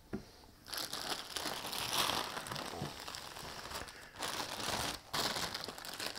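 Plastic packaging bag crinkling as it is handled, starting just under a second in and going on with brief pauses.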